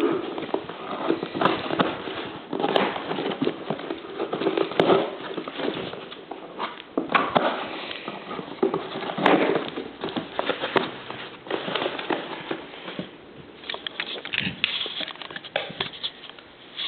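A cardboard shipping box and its packaging being opened and handled, with irregular rustling, crinkling and scraping.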